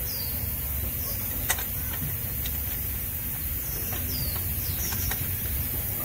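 Steady low background rumble with a few sharp metallic clicks of a hand tool working at the oil filter, the clearest about a second and a half in, and short high descending bird chirps scattered through.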